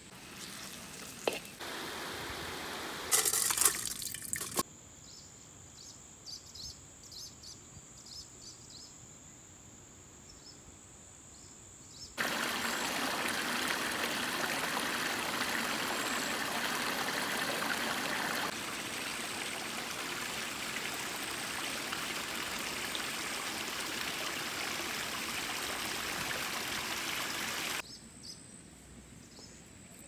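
Small rocky stream trickling and splashing over a little cascade, a steady rush that starts abruptly about twelve seconds in and cuts off near the end. Before it come a few sharp knife taps on a wooden chopping board, then a quieter stretch with a faint steady high whine.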